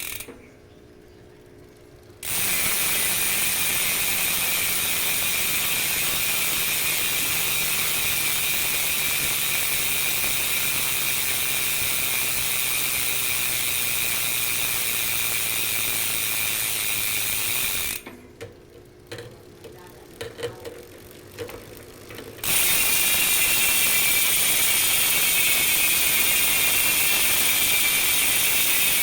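Two-month-old Speedone Soldier rear bicycle hub freewheeling, its pawls ratcheting so fast they merge into a continuous buzz. The buzz stops after about eighteen seconds, leaving a few scattered clicks, then starts again louder near the end.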